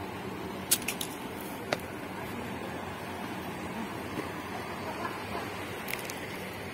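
Steady outdoor background noise, with a few sharp clicks about a second in and another near the end.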